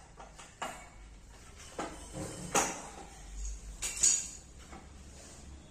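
Bed-frame fittings and panels being handled during hand assembly: a few scattered clinks and knocks, the loudest about two and a half and four seconds in.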